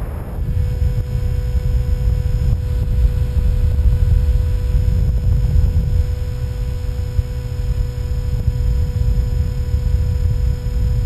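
Wind buffeting and rumbling over the onboard camera's microphone on a Skywalker 1900 electric FPV plane in flight. A steady motor whine at constant pitch comes in about half a second in.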